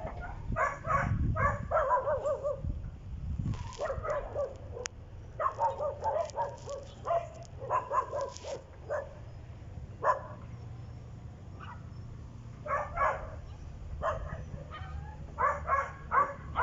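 A dog barking and yipping in short bursts, with gaps of a second or two between clusters of calls.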